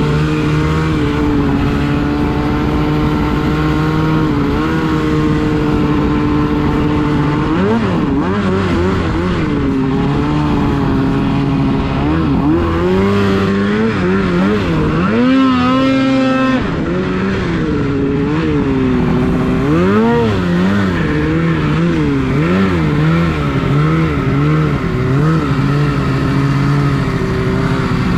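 Two-stroke snowmobile engine running under throttle. It holds a steady pitch for the first several seconds, then revs up and down over and over, with one fast climb and a sudden drop about halfway through.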